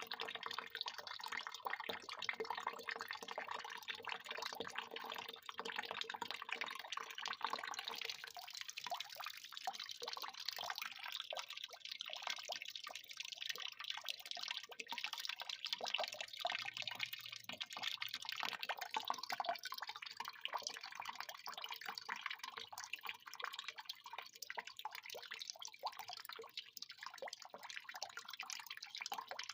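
Water pouring in a continuous stream, splashing and trickling unevenly.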